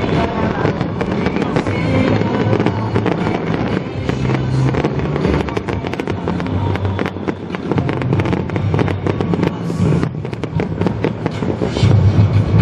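Fireworks display: a dense, continuous crackling and popping of bursting shells, swelling louder near the end.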